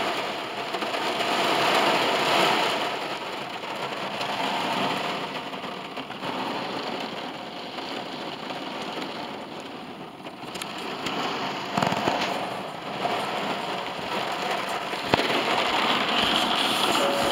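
Heavy rain drumming on the roof and windows of a car, heard from inside the cabin as a dense, steady patter that swells and eases slightly. A few sharp knocks come in the second half.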